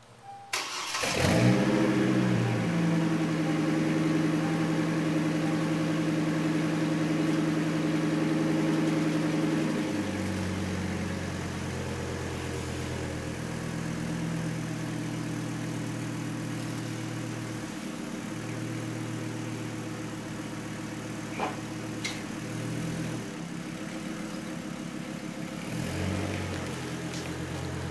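2005 GMC Canyon's 3.5L inline-five running through a Magnaflow 3-inch dual cat-back exhaust. It starts about a second in and holds a fast idle, then drops to a lower, deeper idle about ten seconds in. Near the end the note rises briefly as the truck pulls away.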